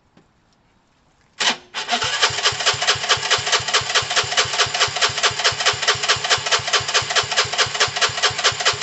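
Gilera DNA 125's single-cylinder four-stroke engine starting: it fires about a second and a half in, stumbles for a moment, then catches and runs with a steady, even, rapid beat. It is running on fuel fed straight into the carburettor, because its fuel pump is not working.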